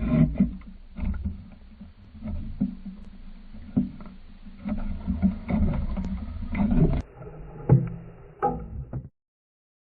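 Low rumbling water and handling noise with frequent knocks and splashes, of the kind picked up by a camera at the water's edge or underwater. It stops abruptly about nine seconds in.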